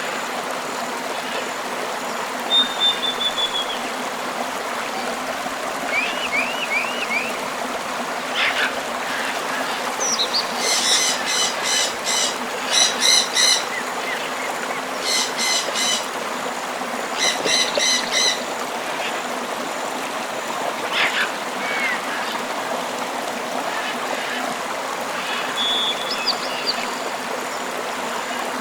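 Tropical river flowing steadily, with scattered bird calls of short gliding whistles and chirps. Midway a bird gives a rapid harsh chatter in three bouts.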